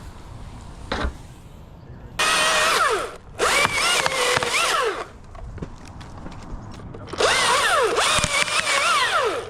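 Chainsaw revved and cutting wood in three bursts, the first two short and close together and the third longer near the end, its engine pitch dipping and recovering as the chain bites into the cut.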